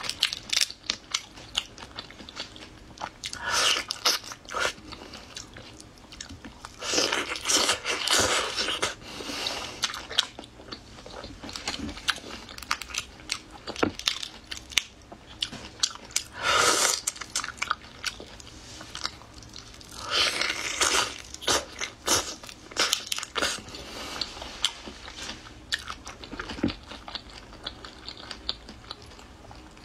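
Eating whole shrimp in chili sauce: biting and chewing with crunching of the shells and the shrimp being pulled apart by hand. There are many small clicks throughout and a few louder bursts of crunching a few seconds apart.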